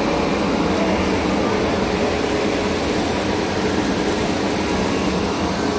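Steady mechanical drone of a running engine, an even hum that doesn't change.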